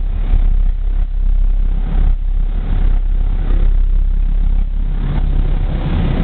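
Passenger ferry's engines running with a steady, deep drone heard from inside the cabin. About five seconds in the drone grows fuller and rougher as the way opens onto the open deck.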